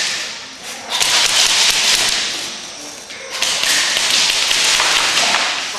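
Airsoft guns firing rapid bursts in an arena walled with plywood: a burst about a second in and a longer one from about three and a half seconds in, each a dense rattle of fast clicks.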